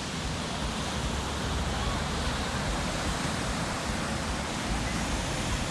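Steady rushing of moving water, an even wash of noise with a low rumble underneath.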